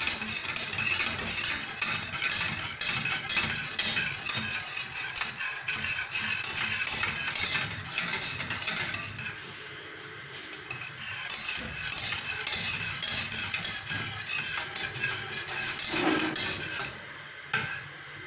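A utensil stirring and scraping around a saucepan of thickening milk and cornstarch custard on the heat, in a rapid, continuous scraping with a brief lull about halfway. The stirring is kept up constantly so the mixture thickens without forming lumps.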